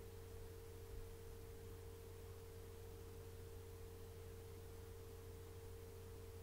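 Faint, steady hum made of one held mid-pitched tone over a low drone, unchanging throughout.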